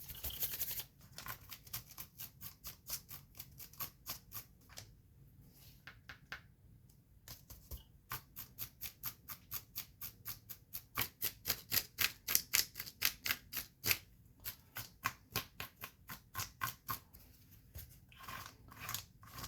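A paintbrush dry brushing rust paint onto plastic model tracks in quick, scratchy back-and-forth strokes, several a second. The strokes pause briefly twice and are densest near the middle.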